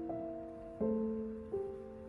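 Soft background piano music: slow, gentle chords, a new one struck about every second and left to ring.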